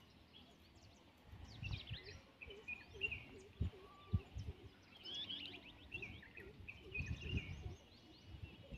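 Several birds chirping and twittering, with a short low call repeated about three times a second from a couple of seconds in, over irregular rumbles of wind on the microphone.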